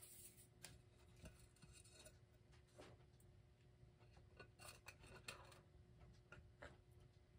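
Near silence with a few faint, light clicks and taps: a round glass clock crystal being handled and pressed down into its glued metal gear ring. A faint steady hum runs underneath.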